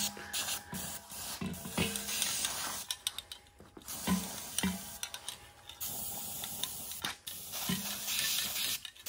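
Aerosol spray paint can hissing in several long bursts with short breaks between them, as paint is sprayed onto the washer tub.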